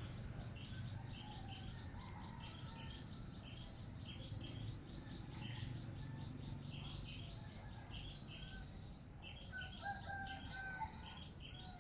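Small birds chirping steadily, with many short high notes, over a faint low hum. Near the end a rooster crows.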